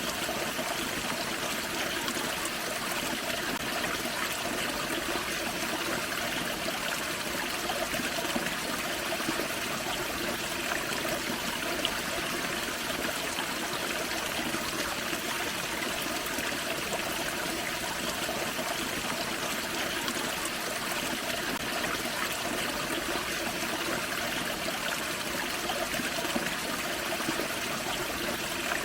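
Small waterfall on a forest creek, water splashing and trickling over rocks in a steady, unbroken rush.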